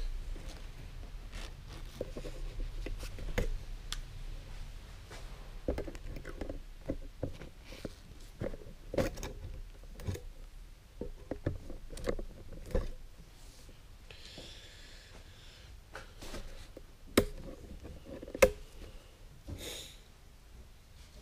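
Fine wire being wrapped around a metal umbrella rib to splint it: scattered small clicks and knocks of wire and tool on the rib, with the umbrella's nylon canopy rustling. A short scraping rustle comes midway, and two sharper clicks near the end.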